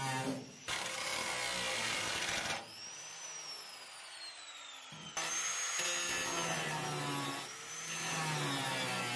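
Angle grinder with a metal cut-off disc cutting through the sheet-steel floorpan of a Mazda Miata, in two long stretches. Between them the grinder is briefly off the metal and its whine falls steadily in pitch as the disc winds down.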